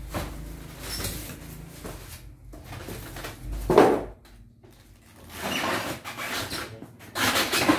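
Handling noises from rummaging in a cardboard box: cardboard and packing material scraping and rustling, with a single loud thud a little under four seconds in.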